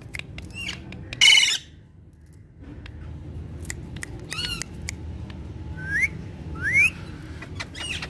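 Alexandrine parakeets calling: one loud harsh squawk about a second in, shorter squawks midway, then two quick rising chirps near the end, with scattered light clicks between the calls.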